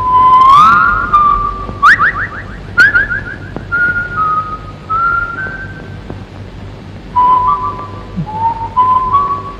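A whistle-like melody of clear, high held notes with quick sliding runs between them, over a steady low hum and tape hiss.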